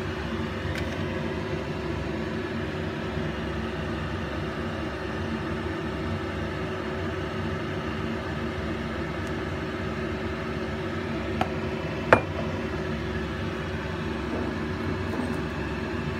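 A steady low machine hum runs throughout, with a faint tick and then a sharper clink about twelve seconds in.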